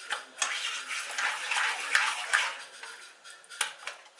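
A metal utensil clinking and scraping against cookware: several sharp clinks with a rasping scrape through the middle, easing off near the end.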